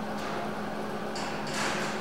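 Steady hum from a switched-on MIG welder resting after a weld at its maximum setting, with a short clatter about a second and a half in.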